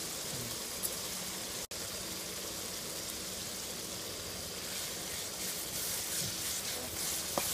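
Tomato and onion masala frying with a steady sizzle in an aluminium kadai over a portable gas stove, being stirred with a metal slotted spatula. The sizzle grows brighter and more crackly in the last couple of seconds.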